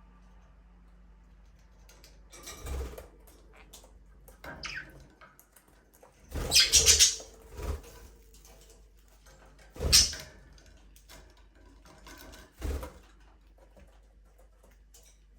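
Budgerigars making a few short, harsh chirps and rustling noises between quiet stretches, the loudest about seven and ten seconds in.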